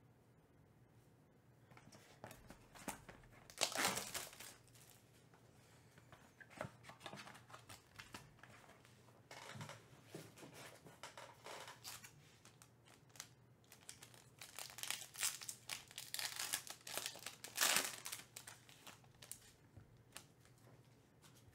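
Foil trading-card pack wrapper crinkling and being torn open by hand, in irregular bursts that are loudest about four seconds in and again in a cluster near the end.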